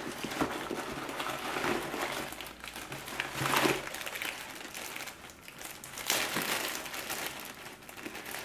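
Crinkling and rustling of plastic and card packaging as hands rummage through a bag of injection supplies and handle a yellow sharps box. The rustling comes and goes, loudest about three and a half seconds in and again about six seconds in.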